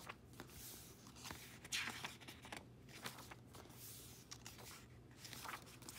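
Pages of a paper photobook being turned by hand: several soft swishes and rustles of paper, about one every second.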